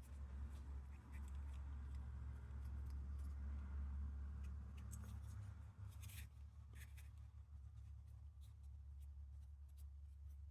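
Faint light scraping and a few small clicks as metal lantern parts are handled and fitted together, over a steady low hum.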